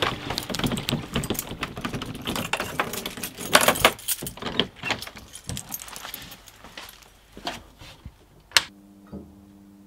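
Keys jangling and rattling at a wooden door's lock and metal slide bolt as the door is unlocked and opened, with a busy run of clicks in the first half, then a few scattered clicks and one sharp click near the end.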